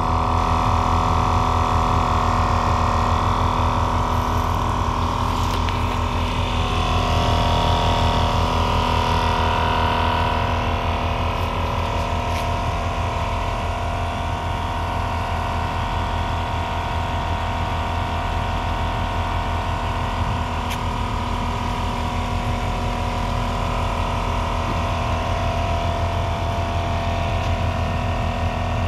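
iKer dual-cylinder portable tire inflator running steadily while pumping up a car tire, its pistons beating a rapid, even pulse.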